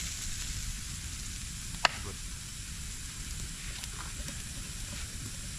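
Chicken roasting over a wood fire, a steady sizzle with a sharp pop about two seconds in and a few faint crackles after.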